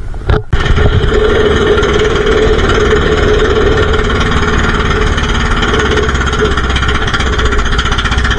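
Engine of a small motorized outrigger fishing boat running steadily while under way. It comes in loud about half a second in, after a brief gap.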